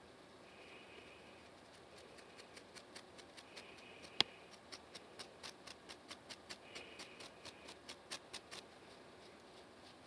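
Close-up scratching of a dry, flaky scalp with a pink comb-like tool: a quick run of short, crisp scratch strokes, about four a second, starting about two seconds in and stopping shortly before the end, with one sharper click about four seconds in.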